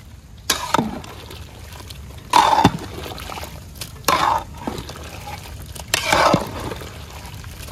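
Wet splashing sounds from a pot of thick drumstick curry with ground coconut paste, four short bursts about two seconds apart.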